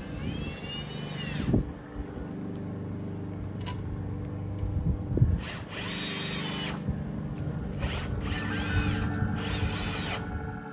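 Cordless drill driving screws into a wooden frame, in three runs, each whine rising and then falling in pitch. The first run comes at the start and the others about six and nine seconds in, with a few knocks between them.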